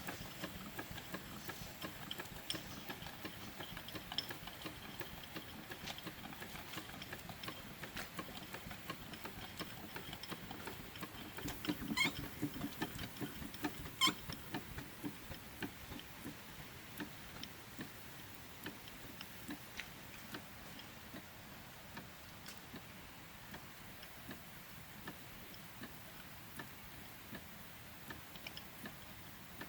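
Scattered light ticking and clicking, irregular, with two sharper clicks about twelve and fourteen seconds in.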